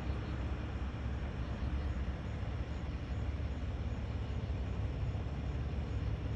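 Steady low rumble of a vehicle heard from inside the car's cabin, with a faint even hum underneath.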